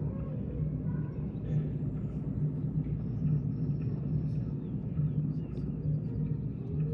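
Low, continuous rumble with a soft, uneven pulse, from the soundtrack of an animated projection exhibit showing a running pronghorn herd.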